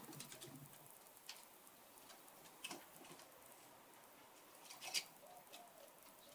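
Near silence with a few faint scattered taps, the loudest about five seconds in: dogs' paws and claws on wooden decking.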